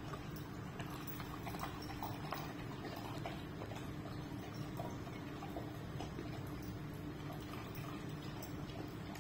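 Yellow Labrador retriever eating wet, chopped food from a bowl: a run of irregular, quick wet chewing and lapping clicks, over a steady low hum.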